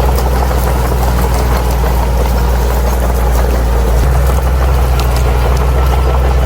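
Bulldozer's diesel engine running steadily at an even note, its low tone shifting slightly about four seconds in, with faint clicks over it.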